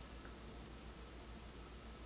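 Faint room tone: a low steady hum under a soft even hiss, with no distinct scraping strokes.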